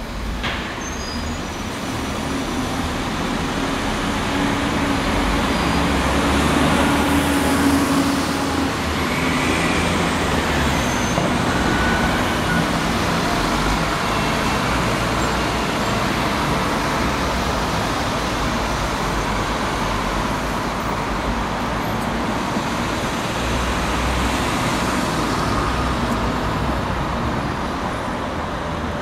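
City buses pulling away and passing close by among road traffic: a steady diesel engine drone with tyre and traffic noise, growing louder over the first several seconds and then holding steady.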